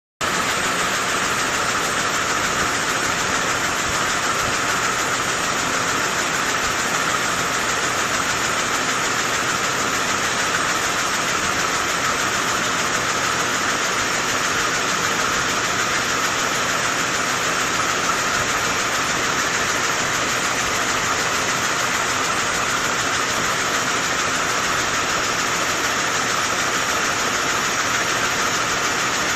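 Canman X7 can body welding machine running continuously: a steady, unchanging mechanical din with a hissing edge.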